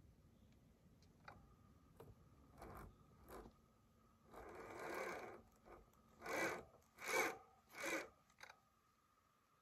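KTM Freeride electric dirt bike's motor and drivetrain whirring in short bursts as the throttle is twisted, over a faint steady high whine. There is one longer burst about four seconds in, then three sharper ones a little over half a second apart near the end.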